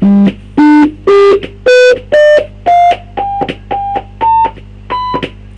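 Computer-generated beep tones from MSWLogo's SOUND command: about ten short notes, roughly two a second, stepping upward in pitch like a scale, one note repeated near the top.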